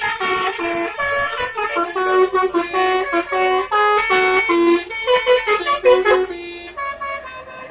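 Bus telolet horn, a Basuri-style multi-tone air horn, playing a quick melody of separate held notes, several a second. It turns quieter near the end.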